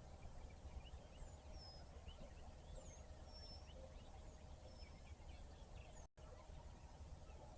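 Faint wild birdsong: scattered short chirps and several thin whistled notes that slide downward, over a steady low background rumble. The sound cuts out completely for a moment about six seconds in.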